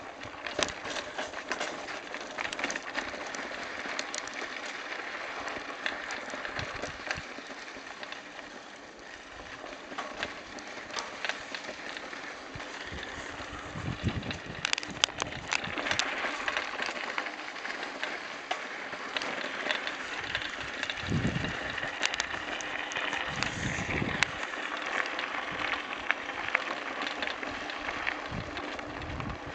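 Mountain bike rolling over a gravel and sand trail: tyres crunching and the bike rattling with many small clicks and knocks. There are a few short low rumbles, one about halfway through and two more later.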